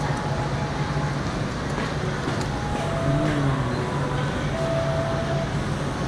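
Steady rumbling hiss with a low hum, like running machinery, with a few faint short tones over it.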